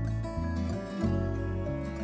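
Background music: a plucked-string tune over a bass line that changes note about every half second.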